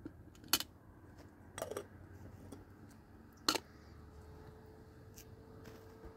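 Three sharp knocks spread over about three seconds, the second a brief rattle, with a few fainter clicks between; a faint steady hum sets in after the last knock.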